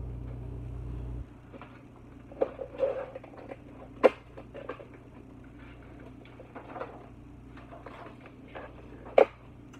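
Food packaging and items being handled on a kitchen countertop: light rustling and small clicks, with two sharp knocks of something set down, about four and about nine seconds in. A low steady hum cuts off about a second in.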